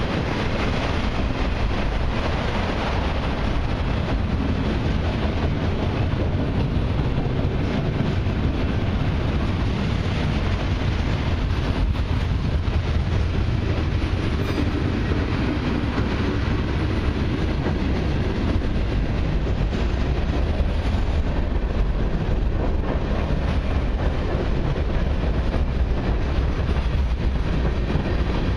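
Long mixed freight train rolling past, its steel wheels on the rails giving a steady rumble and clatter as autorack cars and then tank cars go by.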